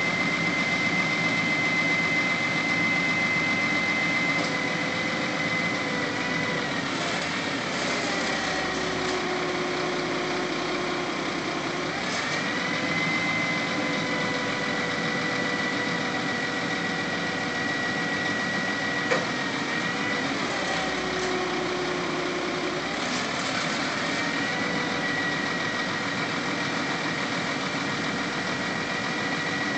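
Crane truck's engine running steadily with a constant high whine from the crane's hydraulics. Twice the pitch drops for a few seconds and then recovers as the crane is worked, and there is a single sharp click about two-thirds of the way through.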